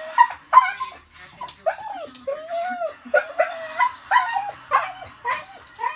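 A dog whining and yipping in a string of short cries that rise and fall in pitch, as if trying to speak.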